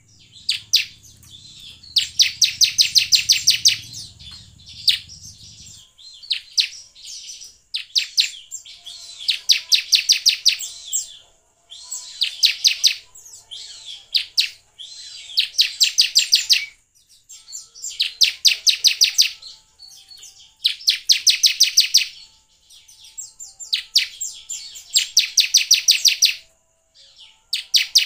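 Bar-winged prinia (ciblek) song: repeated bursts of rapid, high chattering notes, each about one and a half to two seconds long, coming every couple of seconds.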